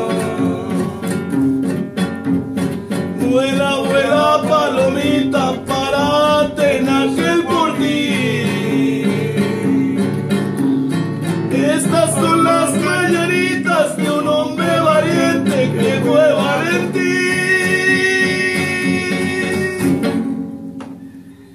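A man singing a Mexican corrido in Spanish, with acoustic guitar and harp accompanying him. Near the end he holds one long note, then the music stops about a second before the close.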